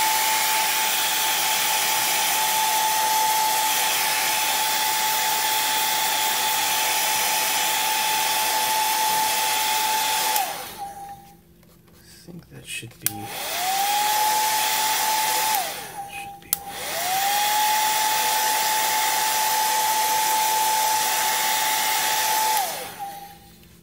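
Handheld hair dryer blowing a steady rush of air with a steady motor whine. It is switched off about ten seconds in and back on, off again briefly and on again, then off shortly before the end. The whine sinks as the motor spins down and rises as it spins back up, with a few switch clicks in the gaps.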